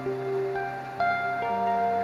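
Slow instrumental background music: single ringing notes sounding one after another and overlapping as they fade.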